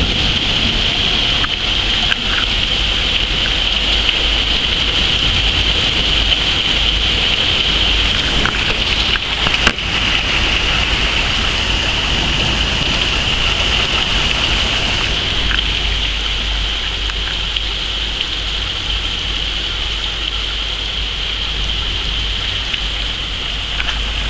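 Heavy rain pouring down steadily, an even hiss, with a couple of brief knocks about ten seconds in.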